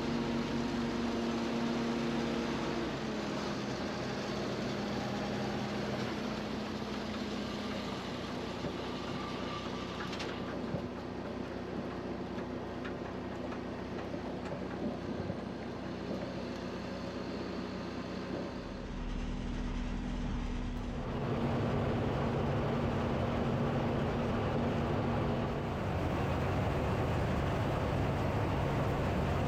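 Heavy machinery engine running steadily. About two-thirds through, the sound shifts to a louder, lower rumble.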